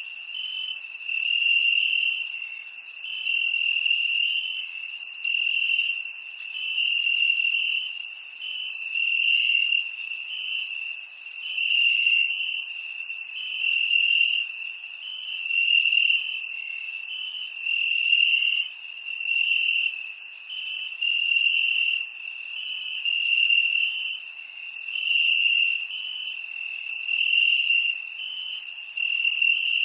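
Crickets chirping in a dense, high-pitched chorus that swells and fades about every two seconds, with fine faint ticks above it.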